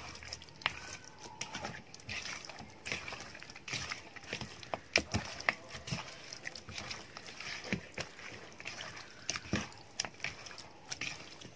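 A hand squeezing and kneading raw chicken pieces in a wet yogurt-and-spice marinade in a bowl: irregular squelches and sticky clicks.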